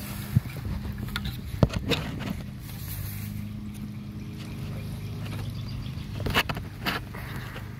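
A motor running steadily with a low hum, with several short sharp knocks over it.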